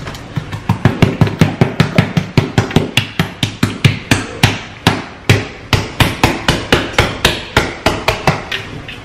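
Hands slapping and patting the skin of a whole raw pig, about four wet smacks a second, working the seasoning in.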